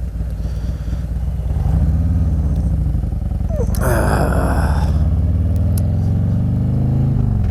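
Harley-Davidson V-twin motorcycle engine running under way, its pitch climbing as it speeds up about a second and a half in. A brief rushing noise cuts in about four seconds in.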